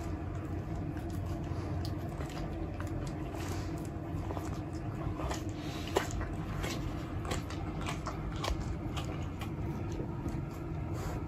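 A caracal biting and chewing a piece of raw chicken, with irregular crunches and clicks and one sharper crunch about six seconds in.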